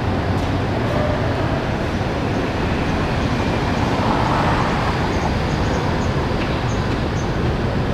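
Steady road-traffic noise, a dense even rumble that swells a little about halfway through.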